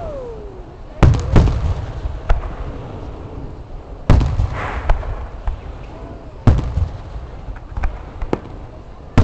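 Aerial fireworks bursting in a series: heavy booms about one second, four seconds and six and a half seconds in, with smaller cracks between them, each followed by a rumbling echo.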